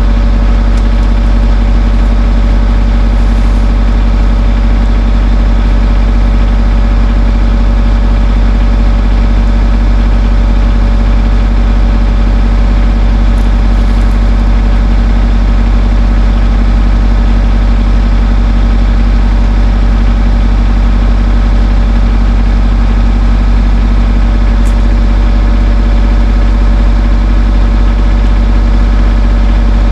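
Skid steer engine idling steadily, heard loud and close from on top of the machine, with no change in speed.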